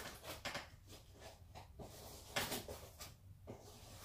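Faint, scattered rustles and light knocks of a large cardboard furniture box being handled and opened.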